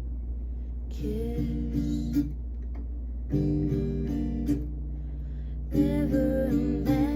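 Acoustic guitar playing chords in three short phrases separated by brief pauses, over a steady low hum.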